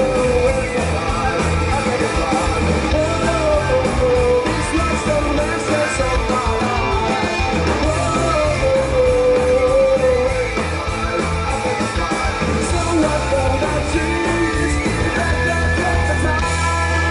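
Live rock band playing loud: sung vocals with long held, wavering notes over electric guitars, bass guitar and drums.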